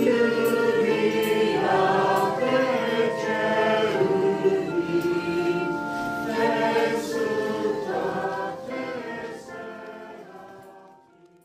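Congregation and small choir of men's and women's voices singing a hymn together, several voices holding sustained notes. The singing fades out over the last few seconds.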